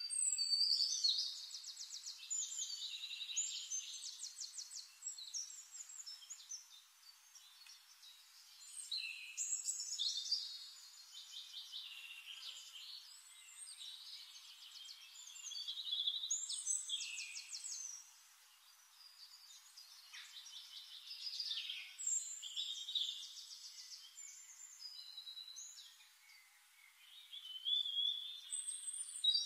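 A songbird singing in repeated phrases of rapid trills and whistles, each bout lasting a few seconds with short pauses between.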